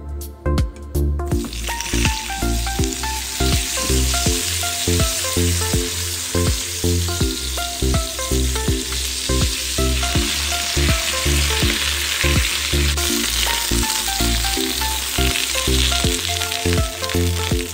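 Food sizzling and frying in hot mustard oil in a pan, starting about a second and a half in and continuing steadily, over background music with a steady beat.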